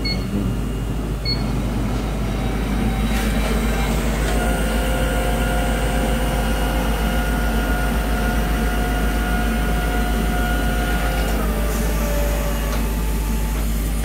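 Screen 4100 machine running over a constant low hum. A steady whine comes in about four seconds in and shifts to a lower tone about eleven seconds in before stopping. A short electronic beep sounds at the very start.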